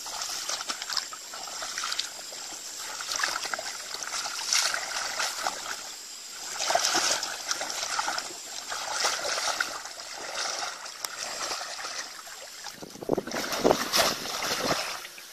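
Feet splashing and sloshing through shallow muddy water and wet grass in irregular bursts, with a louder run of wading splashes near the end.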